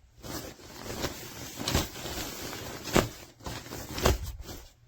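Waterproof jacket shell fabric rustling as the jacket is handled, with three sharper swishes about a second apart.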